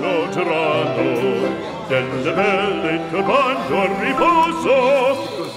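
Music with a singing voice in wide, wavy vibrato, in an operatic style.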